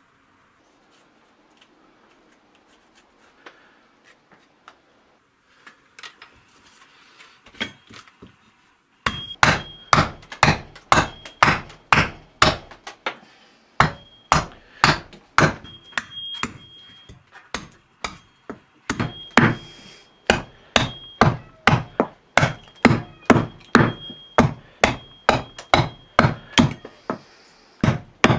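Hatchet chopping into a small wooden block on a chopping stump, rough-hewing a carving blank. A few light taps come first, then about a third of the way in steady blows start, about two or three a second, with a short pause partway through.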